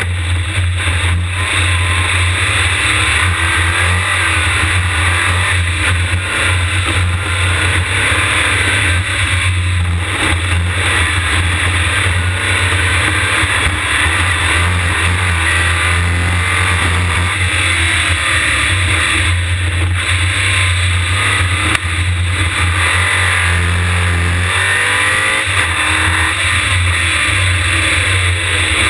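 Open-wheel race car at speed, its engine revving and its pitch rising and falling through the gears, heard from a camera mounted on the car's body with a steady low rumble under it.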